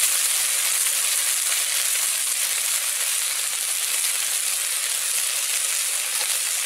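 Taro, potato and aubergine frying in oil with ground spices and fish heads: a steady sizzle in the pan.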